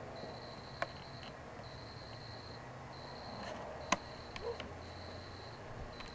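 Insects trilling in a steady high repeating pattern, each trill lasting about half a second to a second with short gaps between. Two sharp clicks come about a second in and about four seconds in.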